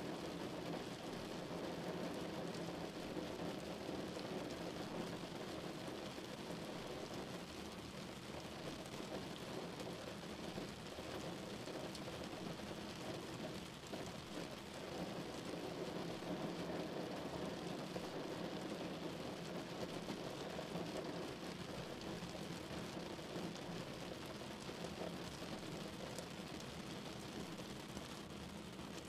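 Steady rain falling on a car's roof and windscreen, heard from inside the moving car, mixed with the car's running and tyre noise on the wet road.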